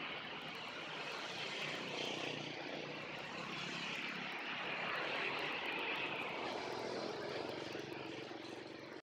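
Road traffic passing close by: cars and motorcycles going past in a steady rush of engine and tyre noise that swells and eases slightly.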